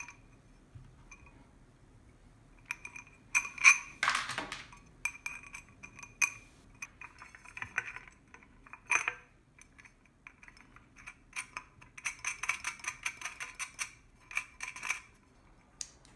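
Metal clinking and rattling as the antique globe's thin metal base is handled, its loose hardware knocking against it. There are a few sharp, ringing clinks about four seconds in and a run of quick rattling clicks from about twelve to fifteen seconds in.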